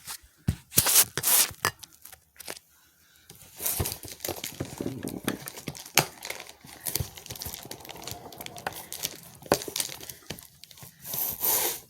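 Plastic wrapping on a trading-card bundle box crinkling and tearing as it is pulled off by hand, with sharp clicks of handling. A few short bursts come first, then nearly steady crinkling from a few seconds in, and a louder rip near the end.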